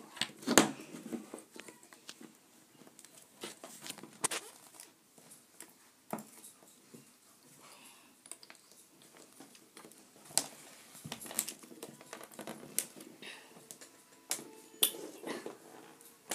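Plastic pieces of a stickered 3x3 puzzle cube clicking and knocking as the cube is taken apart by hand and pieces are pulled out. Irregular sharp clicks, the loudest about half a second in, with quieter handling noise between them.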